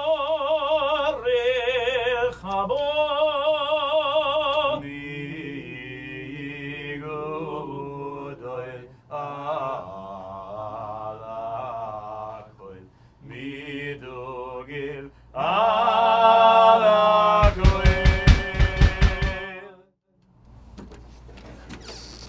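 A solo voice singing in an operatic style with wide vibrato, in several phrases, softer in the middle. Near the end a fast run of loud hits, about five a second, lasts about two seconds and then stops abruptly.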